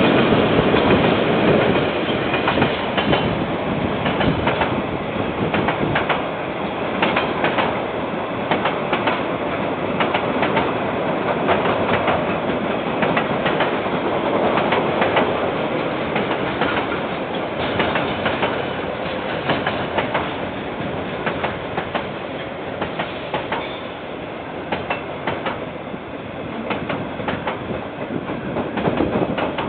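KiwiRail freight train rolling past: a steady rumble with the wheels clicking and clacking over the rail joints as the wagons go by. It is slightly louder in the first couple of seconds, while the diesel locomotives pass.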